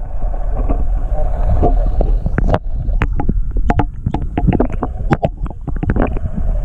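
Muffled underwater sound through a camera's waterproof housing: a steady low rumble with a rapid scatter of sharp clicks and knocks, most of them in the second half.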